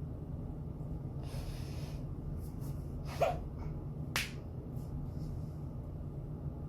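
A woman breathing in, then hiccuping twice, about a second apart, the first one the louder.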